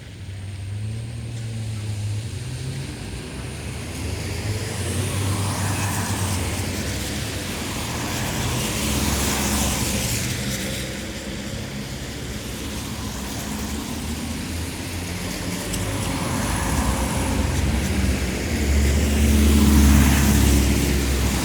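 Light town traffic on a wet road: several cars pass one after another, their tyres hissing on the wet asphalt as each swells and fades, over a steady low engine rumble. The loudest pass comes near the end.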